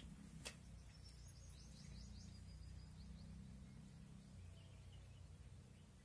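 Near silence: a low background hum, a single faint click about half a second in, and a quick run of faint high-pitched bird chirps over the next couple of seconds.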